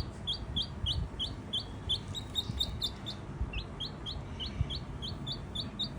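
Domestic chick peeping: a steady run of short, high, downward-sliding peeps, two or three a second, with a brief pause about halfway through. Faint low knocks sound beneath.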